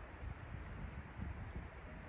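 Wind buffeting the microphone in irregular low rumbling gusts over a steady outdoor background hiss, with a faint short gliding tone near the end.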